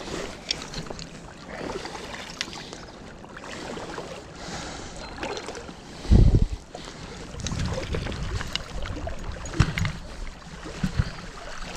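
River water splashing and sloshing close by as a hooked brown trout is brought into the net, with scattered knocks of handling and a heavy low thump about six seconds in.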